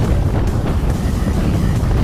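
Wind buffeting the microphone of a camera on a mountain bike rolling down a gravel track: a steady, heavy low rumble.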